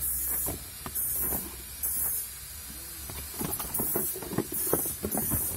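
Cardboard packaging and plastic wrap being handled as a twin-head car fan is unboxed: rustling, scraping and light knocks, with short bursts of hiss recurring about once a second.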